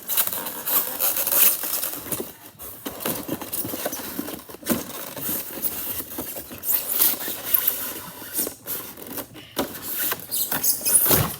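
Handling noise from the device being slid and fiddled with by hand: continuous rubbing and scraping with many small clicks and knocks.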